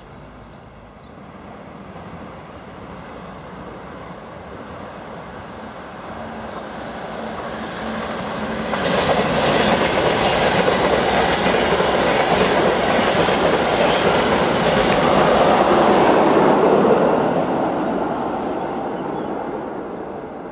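A train passing through the station: the rumble of wheels on the rails grows louder, holds at its loudest for about eight seconds as the train goes by, then fades away near the end.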